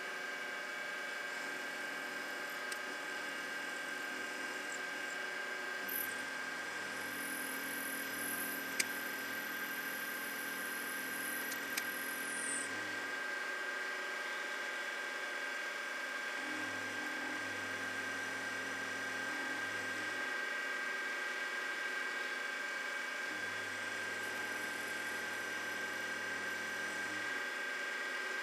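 Grizzly G0755 mill/drill running with a steady motor whine as a twist drill in its chuck bores into a part held in the milling vise. A lower hum comes and goes three times, each time for a few seconds, and a faint high squeal sounds for several seconds during the first hum.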